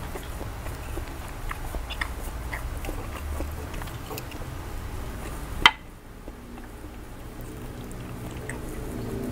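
Eating sounds: chewing, and wooden chopsticks clicking against a glass baking dish in small scattered taps over a low steady hum. One sharp, loud click comes a little over halfway through, and the hum drops away after it.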